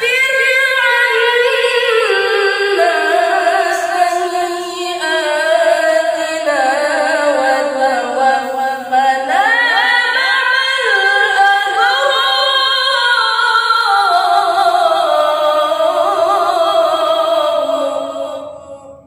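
A boy reciting the Qur'an in melodic tilawah style, unaccompanied, drawing out long phrases with wavering, ornamented held notes. The voice climbs high about nine seconds in, then descends and fades out near the end.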